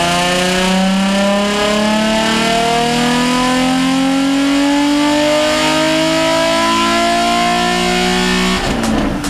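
Nissan 350Z's 3.5-litre V6 at full throttle through a Tomei Expreme titanium cat-back exhaust, its pitch rising steadily as the revs climb from about 3,500 to 7,000 rpm in one gear. Near the end the throttle closes and the note drops suddenly.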